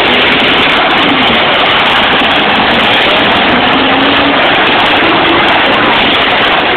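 Demolition-derby pickup trucks' engines running and revving together: a loud, steady din with faint rising and falling pitch.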